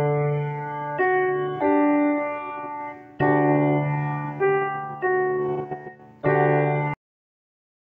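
Piano played as a slow series of sustained chords, each struck and left to ring; the last chord stops dead near the end.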